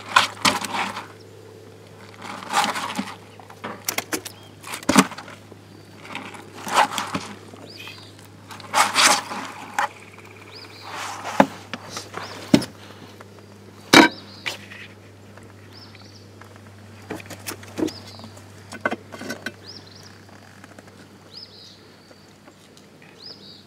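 Irregular knocks, thumps and scuffs of a landed fish and landing net being handled in a small boat, with one sharp knock about 14 seconds in. A steady low hum runs underneath.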